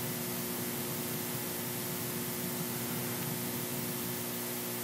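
Steady hiss with a faint, even low hum: room tone and recording noise, with no other event.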